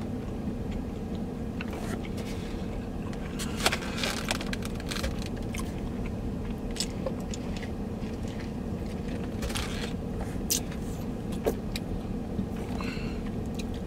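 Steady low hum of a vehicle idling, heard inside its cabin, with scattered small clicks and taps.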